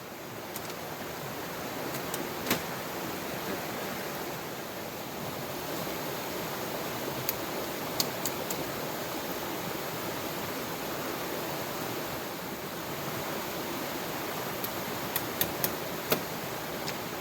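Steady rush of heavy rain and a river running. A few sharp clicks stand out, a handful of them close together near the end.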